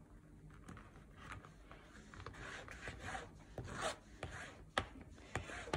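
A freshly glued paper strip in a journal cover being rubbed down by hand to burnish it flat and secure, giving soft repeated scuffing strokes that grow stronger after the first second or so, with a few sharp ticks near the end.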